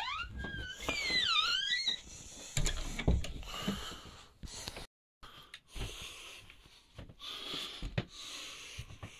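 A wooden door's hinge creaking in a wavering squeak as the door swings, over the first two seconds. Then footsteps on carpet, dull thumps and rustling as the phone is carried through the room.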